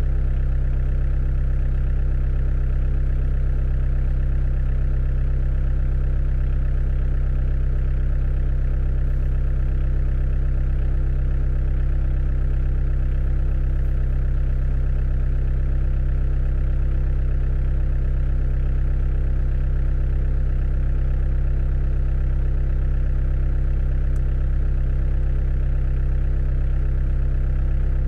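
Excavator's diesel engine idling steadily, a constant low rumble with no change in revs.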